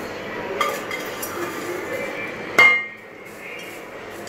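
A wooden spatula knocks and scrapes inside a pressure cooker pan as popcorn is tipped into a glass bowl, with a few light knocks and then one loud ringing metal clank about two and a half seconds in.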